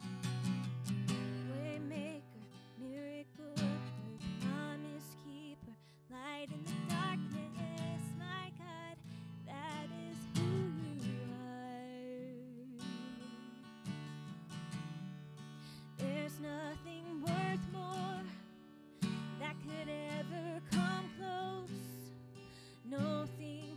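Live worship music: an acoustic guitar strumming chords, with a singing voice carrying a wavering melody over it at times.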